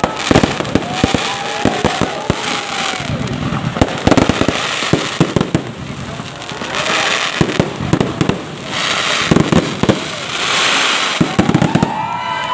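Fireworks going off: many sharp bangs and crackling bursts, with stretches of hiss and a few tones that swoop up and back down.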